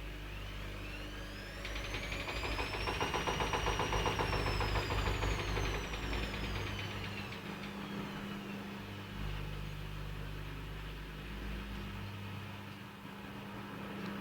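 Privileg 9515 Sensation washing machine on its spin cycle: the motor whine rises over the first few seconds and then falls away, with a rapid knocking from inside the machine, loudest while the whine is highest, over a steady low hum. The knock comes only with laundry loaded, and the owner cannot place its cause, since the drum does not wobble or have play.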